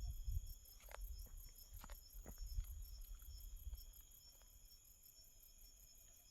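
A steady insect chorus of crickets, with continuous high trilling and a fast, pulsing chirp. A few soft rustles and clicks and a low rumble come in the first few seconds, then die away.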